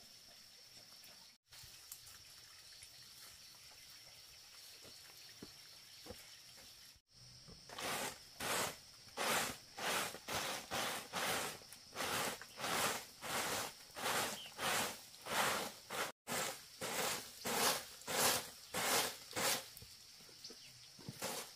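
A faint steady hiss with a thin high tone, then, from about a third of the way in, loud rhythmic scraping strokes, about two a second.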